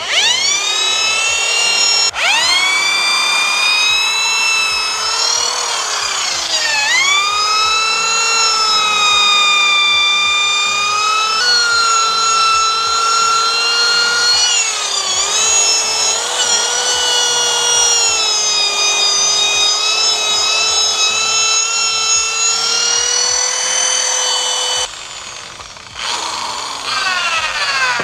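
Electric drill spinning a nylon scrub brush against a supercharger housing to scrub off degreaser and grime. A steady high motor whine that sags in pitch each time the brush is pressed in and bogs, then picks back up; it stops briefly near the end and starts again.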